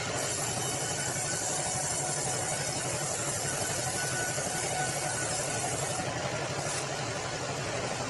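Sawmill bandsaw running steadily: a continuous mechanical drone, with a high hiss that eases about six seconds in.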